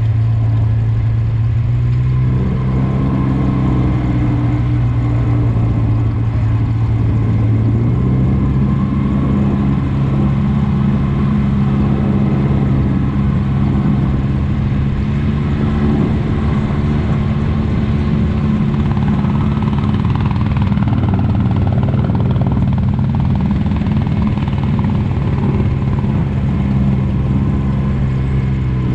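Engine of an off-road side-by-side running steadily on a trail ride. Its note shifts about two seconds in, steps up about eight seconds in, and drops right at the end.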